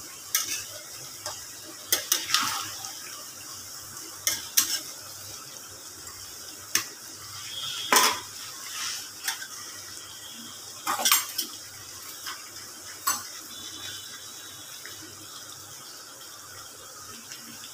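A metal spatula stirring chicken in thick gravy in a metal kadai. It scrapes and clinks against the pan at irregular moments, every second or two, over a faint steady sizzle.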